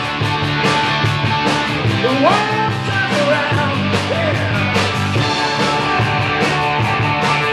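Live rock band playing loud and steady: electric guitars, bass guitar and drums with regular cymbal and snare hits. A lead line slides up in pitch about two seconds in.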